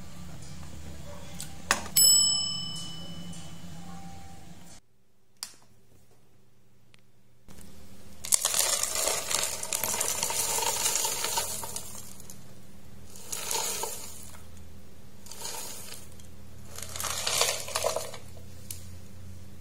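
A single ringing clink of glass or ceramic about two seconds in. Later, dry granola is poured from a jar into a ceramic bowl: one long pour, then three shorter ones.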